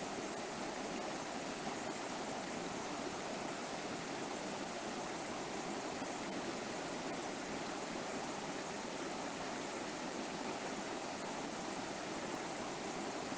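River water flowing steadily over rocks: an even rushing with no breaks or changes.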